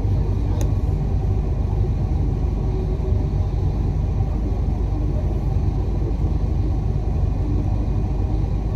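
Steady low rumble of an idling vehicle engine mixed with street traffic, with one brief click about half a second in.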